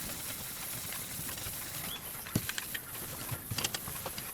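Quiet background hiss with a few light, irregular clicks and taps from about two seconds in.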